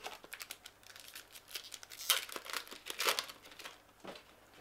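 Crinkly wrapper of a 2017 Topps baseball card pack being handled and torn open: a run of irregular crackling rustles, densest and loudest about two to three seconds in, with one last crackle near the end.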